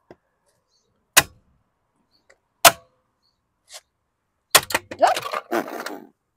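Two sharp knocks, about a second and a half apart, of a rubber mallet striking a plastic wheel cover on a car wheel. Near the end comes a rapid clatter and scraping of the plastic cover.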